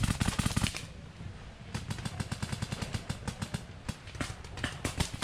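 Paintball markers firing rapid strings of shots, loudest in the first second, then lighter rapid fire carrying on.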